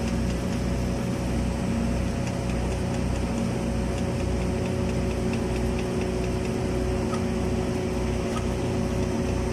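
Steady hum of an automatic girth welding rig's machinery, with a low throb about once a second and faint ticking.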